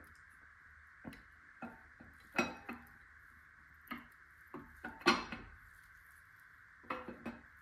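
Truck Norris camshaft clicking and clinking lightly against the cam bearings and block as it is fed slowly into a 6.0 LS V8's cam tunnel: scattered light metal-on-metal clicks, the loudest about five seconds in.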